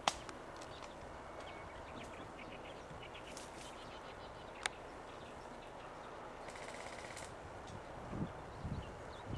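Airsoft gunfire at a distance: a sharp single shot at the very start and another a little before halfway, then a short rapid burst of fire about two-thirds of the way in. Faint bird chirps sit in the outdoor background, and low rustling thumps come near the end.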